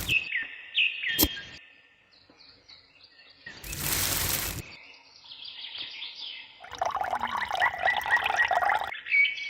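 Birds chirping in short calls, broken by a sharp click about a second in and a loud hiss of noise lasting about a second near the middle.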